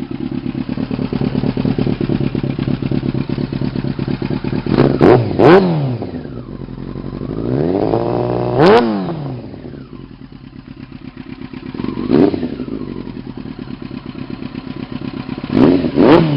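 2000 Yamaha R6's inline-four through a Dan Moto aftermarket exhaust, idling and then revved: two quick blips, a slower, longer rev that climbs and falls back, a single blip, and two more quick blips near the end.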